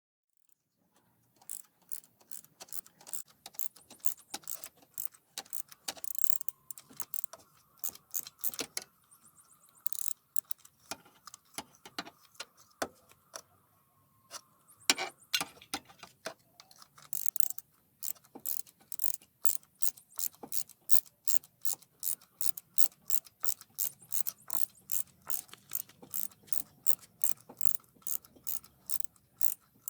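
Hand ratchet wrench clicking in long runs of back-and-forth strokes, with a brief lull about thirteen seconds in.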